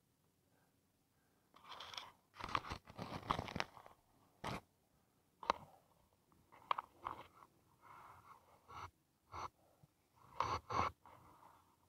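Snow crunching as someone moves through deep, churned snow: a dense run of crunches from about a second and a half in, then single crunches every half second to a second.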